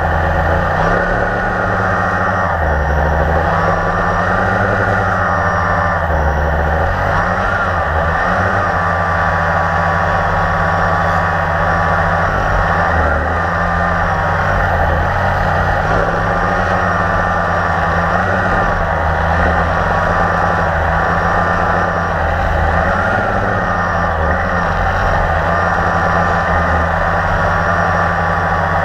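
Blade 350QX quadcopter's four electric motors and propellers running steadily, heard muffled through the GoPro mounted on the drone itself. Several tones waver up and down in pitch as the motors speed up and slow down to hold the drone in the air.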